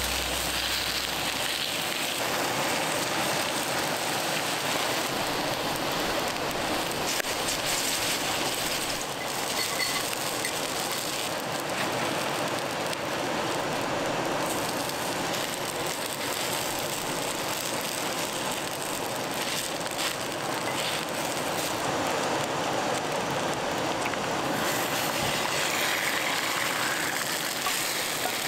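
Steady rushing of a river flowing past, with a few faint clicks over it.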